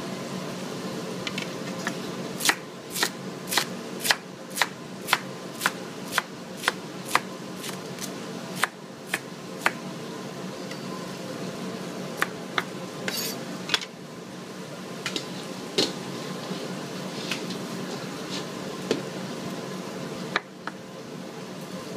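A large kitchen knife chopping celery and carrots on a plastic cutting board: a quick, even run of sharp chops about two a second for several seconds, then scattered chops. A steady fan hum runs underneath.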